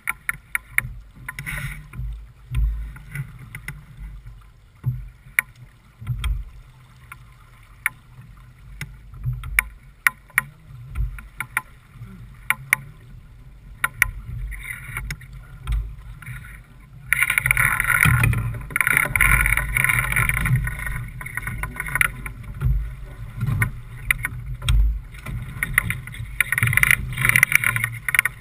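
Wind buffeting the microphone and water rushing along the hull of a J/24 keelboat under sail, with scattered sharp clicks and knocks. A little over halfway in, a louder, steady rushing hiss sets in and stays.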